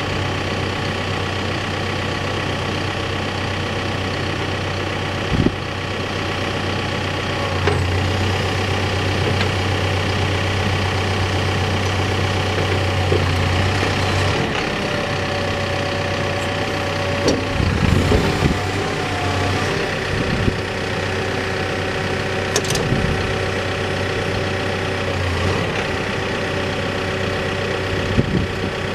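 Backhoe's diesel engine running steadily, its low hum swelling for several seconds near the middle, with a few sharp clunks and knocks from the machine as its controls and attachments are worked during a startup check.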